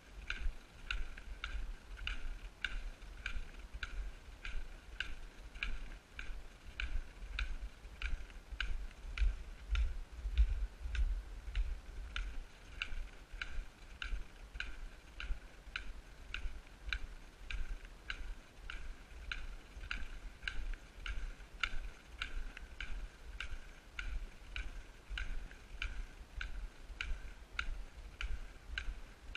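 Steady walking on a packed snow trail: a short, sharp click or squeak with each step, about two a second, over a low rumble of camera movement.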